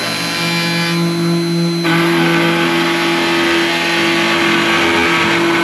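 Wood router with a bowl and tray bit running and cutting a pass around the inside of a hollowed tree-trunk ashtray: a steady motor whine over cutting noise, which grows louder and fuller about two seconds in.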